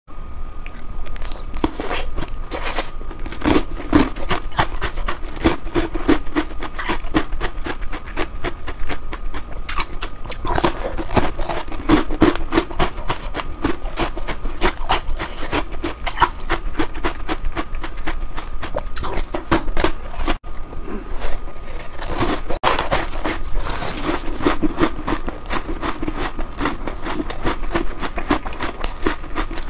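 Someone chewing ice cream: a dense, continuous run of crackly clicks and mouth noises, over a faint steady hum.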